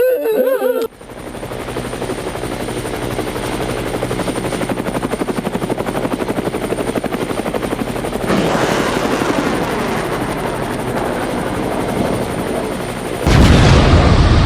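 Helicopter rotor chopping steadily, growing louder about eight seconds in, then a sudden loud boom near the end.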